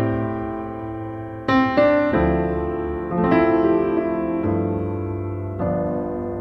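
Background music: a slow piano piece, chords struck about once a second and left to ring and fade.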